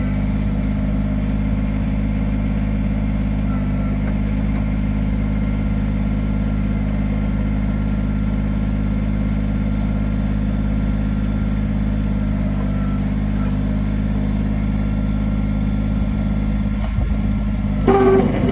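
Kubota backhoe's diesel engine running steadily with an even drone. Near the end a louder, uneven sound comes in over it.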